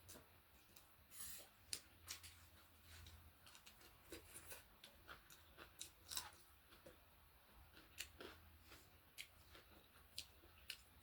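Close-up eating sounds: a person chewing food, with irregular crunches, clicks and small mouth smacks scattered through.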